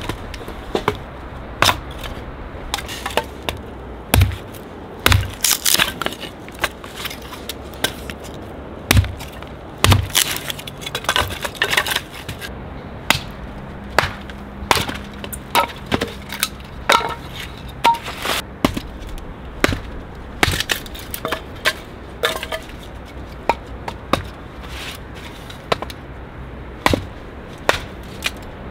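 Tent being pitched: irregular clicks, knocks and light thuds of poles and gear being handled, a few with a brief metallic ping.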